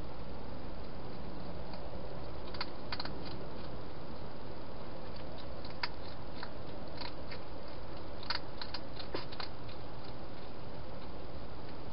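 Wild hedgehog eating from a dish inside a plastic feeding box: irregular sharp chewing clicks in small clusters over a steady background hiss.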